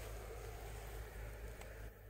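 Steady outdoor background noise: an even hiss over a low hum, with no distinct event.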